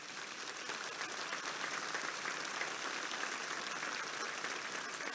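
A crowd applauding steadily, an even wash of clapping with no single claps standing out.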